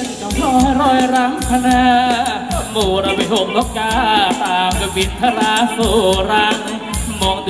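Live Thai ramwong dance music from a band: a steady bass drum beat, a shaker-like rattle and a wavering melody line, played loud.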